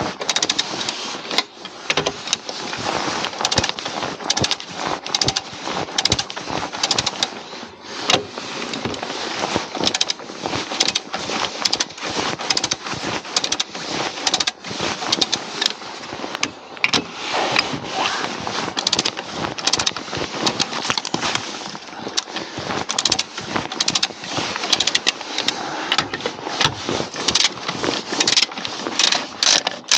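Dense, irregular metallic clicking and rattling of hand tools working on a mobile crane's wheel nuts.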